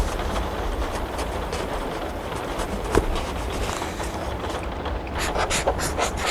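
Steady rain with pencil strokes scratching on paper, a quick run of short strokes starting about five seconds in. A single soft knock comes about halfway through.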